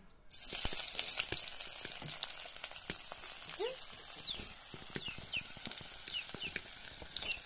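Sliced onions hitting hot oil in a kadhai: a sudden sizzle starts a moment in and carries on as a steady crackling fry.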